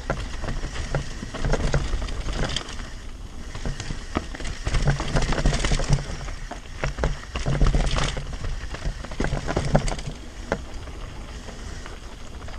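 Devinci Spartan carbon mountain bike descending a dirt and rocky trail: tyres rolling over dirt and stones with many quick knocks and rattles from the bike as it hits bumps, over a steady low rumble.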